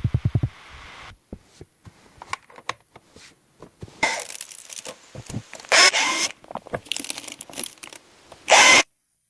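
Hand construction work: a quick run of low knocks, then scattered clicks and taps, and three short rasping, tearing noises, the loudest near the end.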